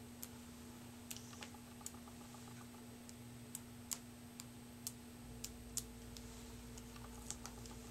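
Faint, irregular light clicks and taps: a phone being handled while a dust-removal sticker is dabbed on its screen.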